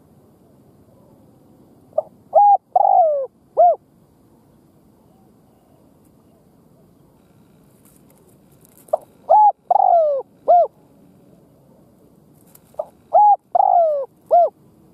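Spotted dove calling: three phrases of cooing notes, each a short note, a held coo, a longer coo that falls in pitch, and a short closing coo.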